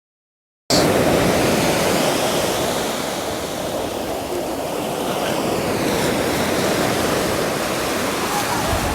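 Steady rushing water, swelling and easing slowly, with some wind on the microphone; it starts abruptly under a second in.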